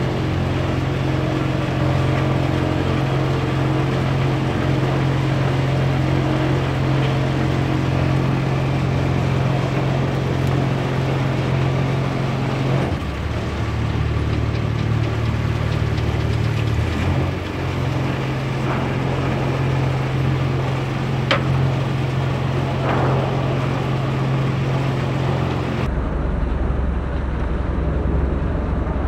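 Engine of a Mekong river passenger boat running steadily, a low drone over the rush of water and wind. Its note shifts about 13 seconds in and changes again near the end.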